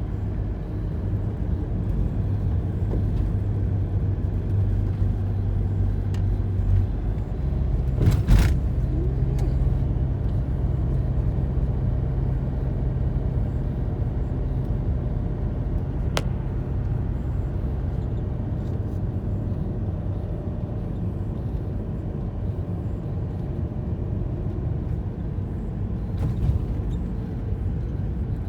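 Car driving, with a steady engine hum and road rumble. The engine note steps up in pitch about seven seconds in, and there is a single knock about a second later.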